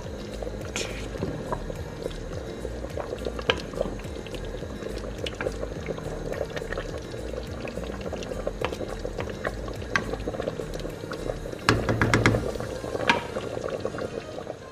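Chicken afritada, a thick tomato-sauce stew with chicken and vegetables, bubbling and popping steadily at a simmer in a steel pot.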